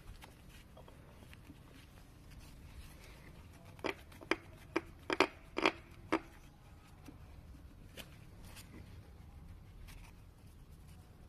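Vespa S 125 gearbox making an irregular run of about seven sharp clicks, about four to six seconds in, over a faint steady low hum; this is the abnormal gearbox noise in question.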